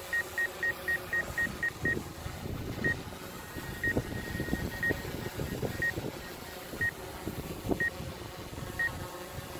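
Short, high electronic warning beeps from the drone's controller app: rapid, about five a second, for the first two seconds, then slowing to about one a second. This is an obstacle-proximity warning, faster while the Mavic 2 Zoom is closest to the tree. Faint low thumps sound underneath.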